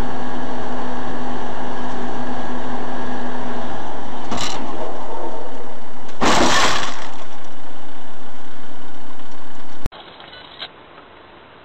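Vehicle engine and road noise running steadily, with a short bang about four seconds in and a loud crashing impact about six seconds in, typical of a road collision. The sound cuts abruptly near the end to a much quieter scene.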